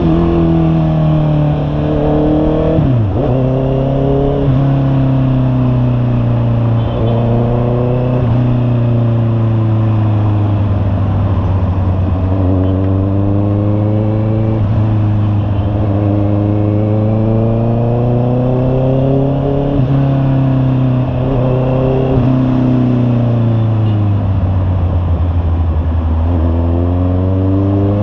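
Honda CB650R inline-four motorcycle engine running through an aftermarket Imba Pure muffler on a ride. Its note climbs, then drops sharply several times, and swings slowly up and down as the throttle opens and closes.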